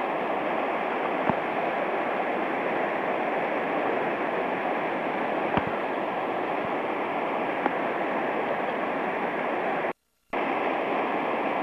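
Fast, swollen mountain stream rushing over rocks in a steady wash, with a few faint clicks. The sound cuts out completely for a moment about ten seconds in.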